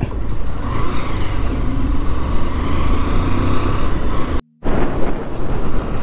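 Motorcycle riding noise: wind rushing over the microphone with engine and road rumble underneath. The sound drops out for a moment about four and a half seconds in.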